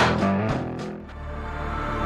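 Background music: a loud passage dies away over the first second, then a quieter passage of held tones comes in.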